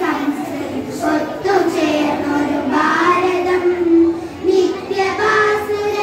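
A group of young girls singing a Malayalam patriotic song together, holding long melodic notes, with a brief pause a little over four seconds in.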